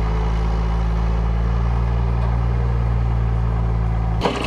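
Takeuchi TB235 mini excavator's diesel engine running steadily, breaking off suddenly near the end.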